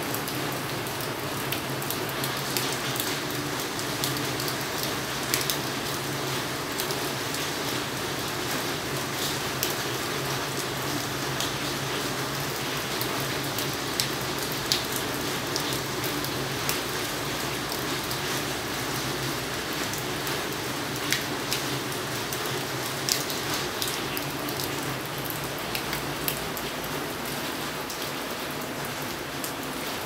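Steady rain falling on potted plants and puddled concrete, with scattered individual drops ticking sharply close by.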